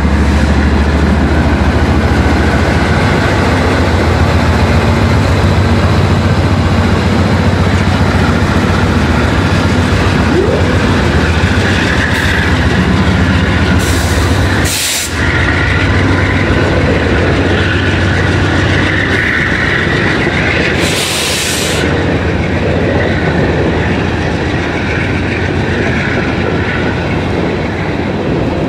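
Loaded coal train rolling past close by: steady rumble and clatter of steel wheels on the rails, with the low hum of BNSF diesel locomotives in the first half.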